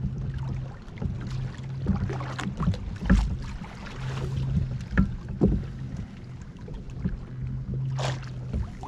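Wind and water around a kayak, with scattered knocks and clatter as a fish is handled on board, over a low hum that cuts in and out.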